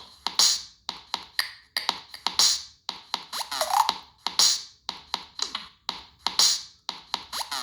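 Preloaded Google Pixel 3a ringtone: a dry electronic percussion pattern of sharp clicks, with a bright swish about every two seconds and short falling tones, the phrase repeating in a loop.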